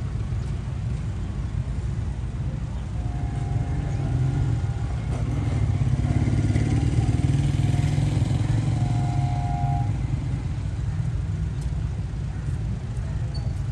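Low rumble of a vehicle engine that swells to its loudest around the middle and then eases off.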